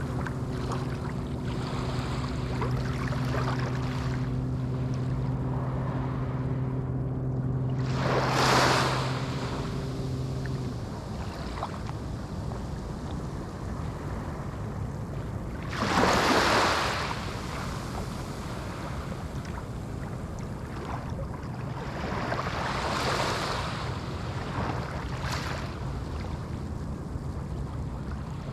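Small waves washing onto a beach, with three surges of surf about eight seconds apart. A steady low motor hum sits under the first third and stops about ten seconds in.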